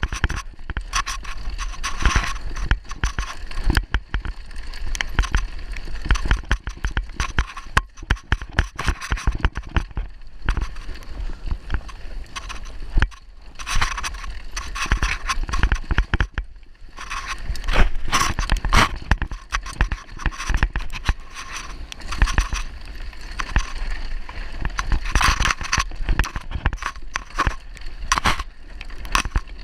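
Downhill mountain bike ridden fast over a rough, rocky trail with no chain fitted: tyres scraping and crunching over stones, with dense rattling knocks from the bike over the bumps, heavier in several rough stretches.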